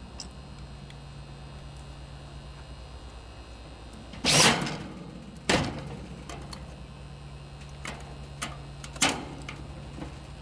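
Three sharp metallic knocks and clatters from parts being handled and fastened on an air-conditioner condenser's fan assembly, the loudest about four seconds in. A steady low hum runs underneath.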